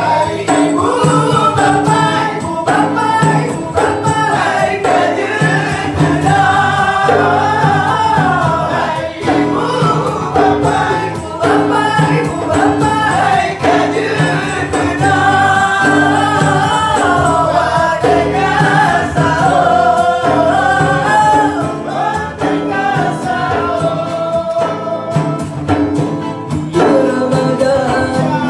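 Two men singing long, ornamented, wavering vocal lines, accompanied by acoustic guitars and a large hand-played frame drum.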